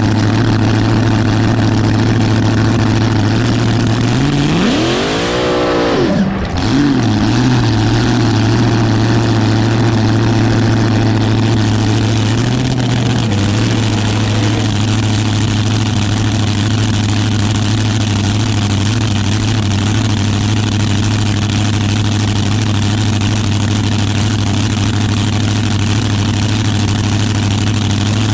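Supercharged V8 of a front-engine dragster idling through open zoomie headers. About four seconds in it is revved once, the pitch climbing steeply and falling back over about two seconds, with a short second blip right after; otherwise a steady idle.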